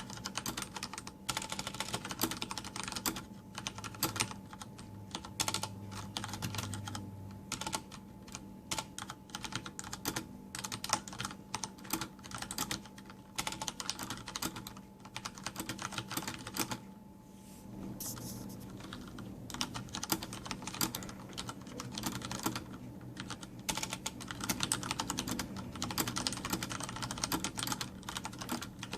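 Typing on a Logitech G710+ mechanical keyboard with Cherry MX Brown switches and no O-rings: a fast, uneven run of key clacks, each keycap bottoming out hard, with a brief pause partway through.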